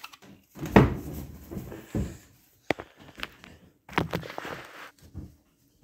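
A string of knocks and clunks with rustling between them, the first about a second in the loudest: a handheld phone being handled and moved about.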